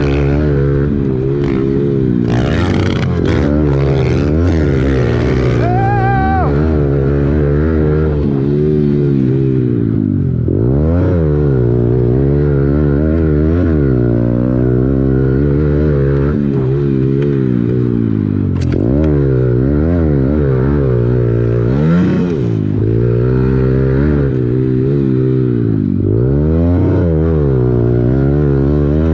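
Pit bike engine heard from on the bike during a race, revving hard with its pitch climbing and dropping again every second or two as the rider works the throttle and gears through the corners.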